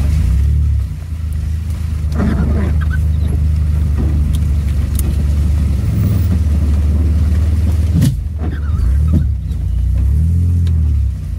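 All-wheel-drive minivan's engine and drivetrain droning inside the cabin while driving slowly over a rough gravel two-track, with sharp knocks and rattles from the body and suspension over bumps, about two seconds in and twice later on. Near the end the engine note rises and falls.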